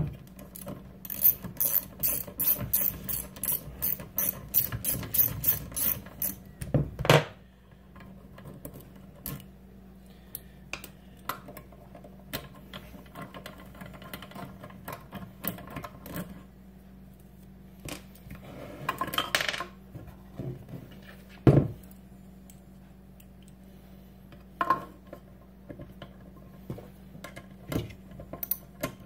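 Small socket ratchet clicking in quick runs, about three clicks a second, as the hex bolts on a Grundfos circulator pump's motor housing are backed out. Then scattered clicks and taps of the tool on the pump, with a sharp knock about seven seconds in and another about twenty seconds in.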